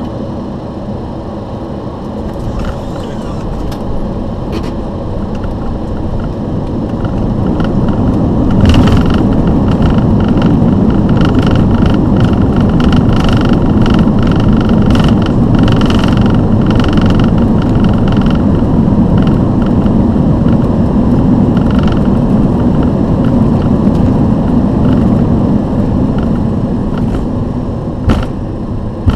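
Boeing 737 landing rollout heard from the flight deck. Engine and airflow noise rises about a quarter of the way in to a loud, steady rumble with a faint high whine, then eases near the end. A couple of short knocks sound along the way.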